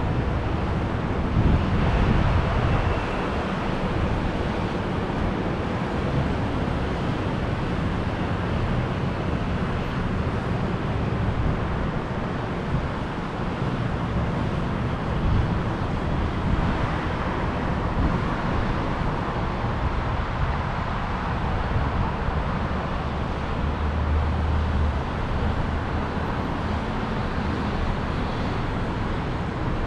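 City street traffic noise: vehicles passing with a steady road rumble, heavier low rumbles of passing vehicles about two seconds in and again about three-quarters of the way through.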